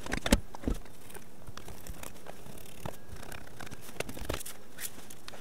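Scattered light clicks, taps and scraping rustles of hands handling test equipment on a workbench, with a few sharper knocks in the first second.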